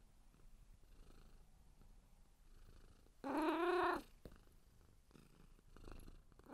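Domestic cat purring softly, then one loud meow lasting under a second a little past the middle; another meow begins right at the end.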